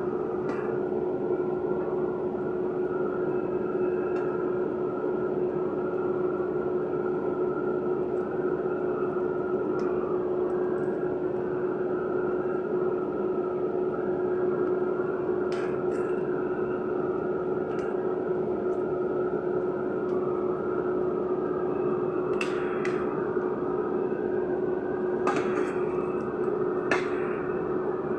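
A steady fan hum with one clear tone held throughout, and a few sharp clicks of metal tongs against the air fryer basket and its foil lining, mostly in the second half.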